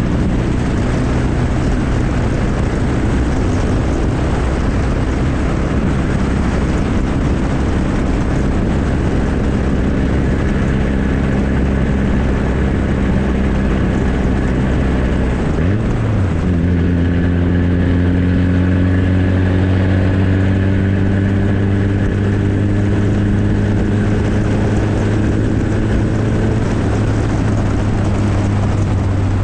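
1994 Ford Ranger's 2.3-litre four-cylinder running loud and steady through a straight-piped exhaust. About sixteen seconds in, its pitch rises quickly and then holds at a higher note.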